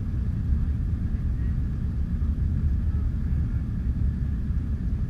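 Airliner cabin noise during take-off: the steady, deep rumble of the jet engines and airflow, with a faint even hum above it.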